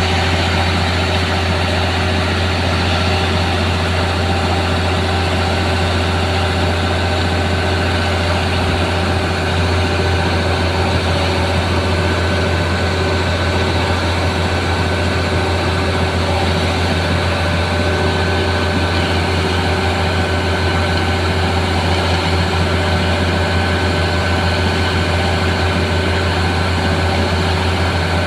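Heavy diesel engine of construction machinery running steadily at constant speed, a deep hum with a thin steady high whine over it.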